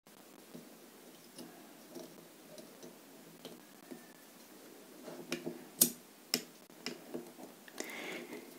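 Faint scattered clicks and light taps as rubber vent caps are pried off the cells of a small 6 V sealed lead-acid battery with a screwdriver and set down, with a few sharper clicks about five to six and a half seconds in.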